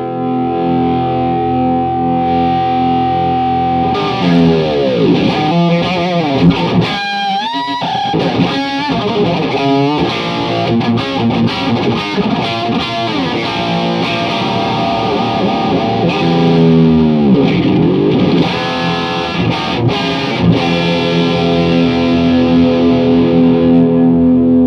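Electric guitar played through a Tone City Golden Plexi overdrive pedal, giving a distorted crunch tone. A held chord rings out, then a lead phrase with bent notes, then another held chord rings out near the end.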